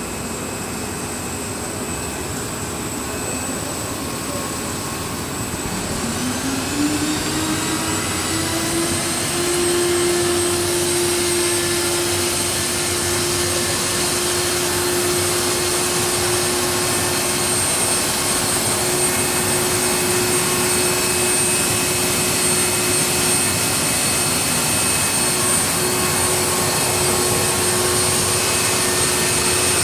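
Laboratory extrusion line for blown film and pelletizing, running with a steady blower-like rush. About six seconds in, a motor's whine rises in pitch over a few seconds, then holds steady as the machine noise grows a little louder.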